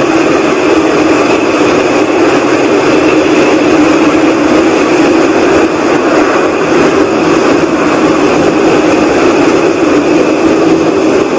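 Loud, steady whooshing, rumbling noise from the night sky, of unknown origin: 'between a whoosh and a rumble', with a constant low drone in it and no change or rhythm. The recordist insists it is not aircraft noise.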